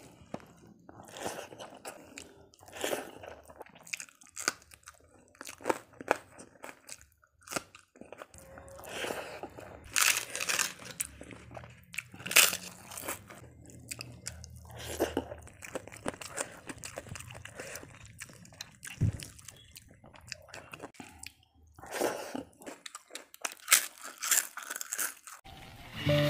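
Close-miked eating: a person chewing and biting food eaten by hand, with irregular crisp crunches.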